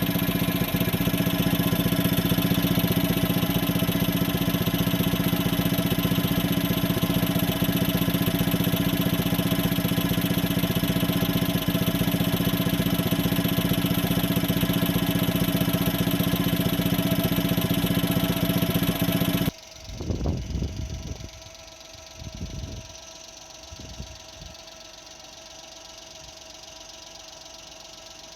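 Suzuki Jimny JA11's engine idling steadily with a rattling, exhaust-leak-like noise. The noise comes from the oil catch tank hose vibrating against a nearby fitting. About two-thirds of the way through the engine sound stops abruptly, leaving a quiet background with a few low thumps.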